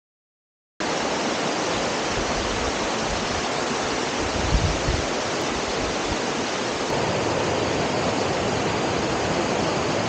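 Small rainforest waterfall: a steady rush of falling water that starts suddenly just under a second in, with a brief low bump about halfway through.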